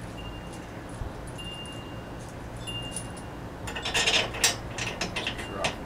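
Small metal bolts and hardware clinking and clicking against each other and against a steel handle bracket as they are handled and fitted. There is a quick flurry of light metallic clinks in the second half, after a few faint high ringing tones.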